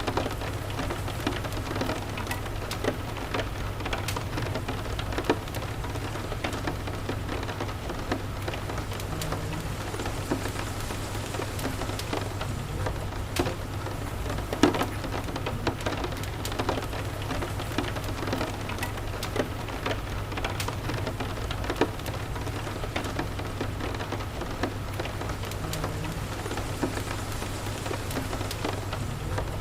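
Steady rain falling, mixed with a fireplace crackling: a constant rushing hiss with a low steady rumble underneath and scattered sharp pops and ticks throughout.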